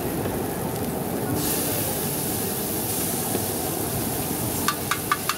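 Liquid poured onto a hot flat iron griddle (tawa) starts to sizzle with a sudden hiss about a second and a half in, and keeps hissing; near the end a few sharp metal clacks of a spatula on the griddle.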